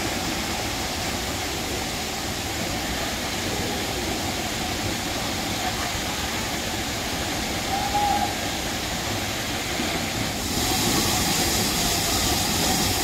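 Steady rushing of Hunua Falls pouring into its plunge pool. The rush grows brighter and a little louder about ten seconds in.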